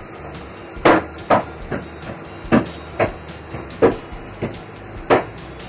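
Irregular light knocks and taps, about eight in a few seconds, as raw cut dough squares are swept by hand off a wooden chopping board onto a plastic plate.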